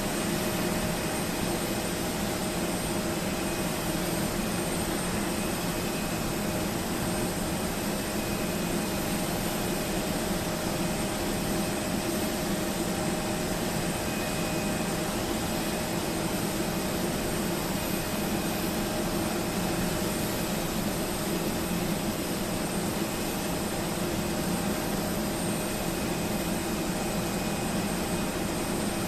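Steady mechanical drone: an even hiss with a few constant whining tones, unchanging throughout.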